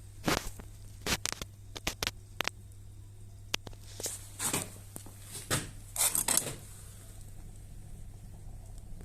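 A scattering of sharp clicks and short rustling knocks over the first six or so seconds, typical of handling a computer mouse and desk, then only a steady faint hum.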